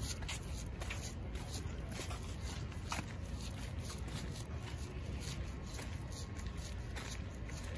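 Footsteps of someone walking on a harbour walkway, heard as scattered light clicks over a steady low rumble.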